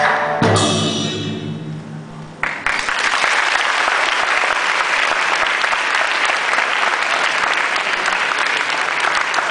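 A Chinese instrumental ensemble, pipa among it, ends the piece on a final chord that rings away for about two seconds. Then an audience breaks into applause about two and a half seconds in and keeps clapping steadily.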